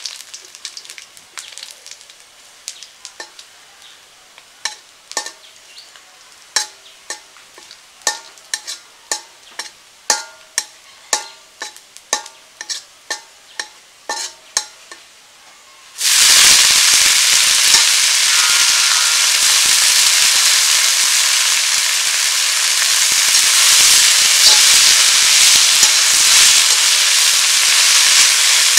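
A metal spatula scraping and knocking around a wok where onion paste and garlic fry gently in mustard oil: sharp ringing strokes about twice a second over a faint sizzle. About halfway through, sour leaves go into the hot oil and a loud, steady sizzle starts suddenly and carries on as they are stirred.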